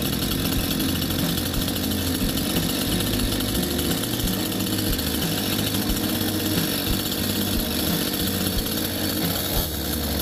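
A TOTAL TG945185 two-stroke gasoline chainsaw engine running steadily, at the point of being test-run after its carburetor was cleaned and refitted.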